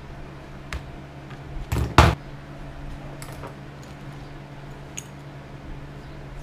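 Small tools or metal hardware handled on a workbench: a few light clicks, and about two seconds in a louder clatter ending in a sharp knock, over a steady low hum.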